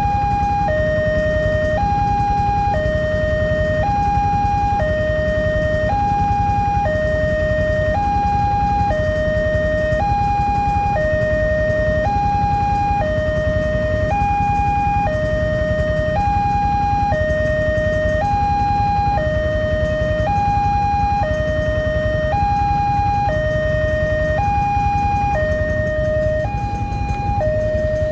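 Railway level-crossing warning siren, of the kind the uploader likens to LEN-model crossings, sounding a steady two-tone hi-lo alarm that switches pitch about once a second: the crossing's signal that a train is approaching. A steady low rumble runs underneath.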